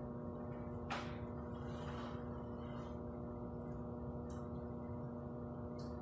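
Steady background hum with several held tones, broken by a short rustle about a second in and a few faint clicks and knocks while shelf items are handled and a stepladder is climbed.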